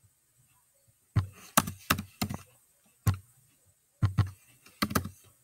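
Keys being typed on a laptop keyboard close to the microphone: about ten irregular clacks in small clusters, each with a dull thump under the click, starting about a second in.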